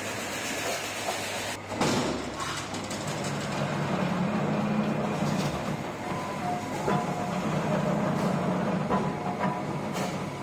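Geared power press with a big flywheel running: a steady machine hum and drone, with a loud clank about two seconds in and a few lighter knocks later on.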